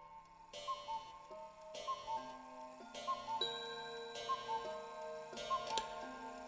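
A clock ticking with an even tick-tock, one pair about every 1.2 seconds, over slow held musical tones that shift from note to note.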